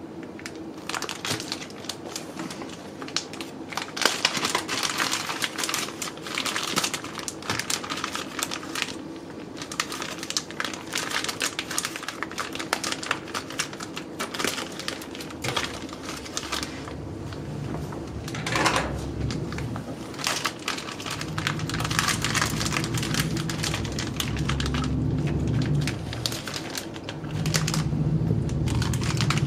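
A clear plastic bag crinkling and rustling in irregular crackles as it is handled and opened. A low steady rumble joins in over about the last third.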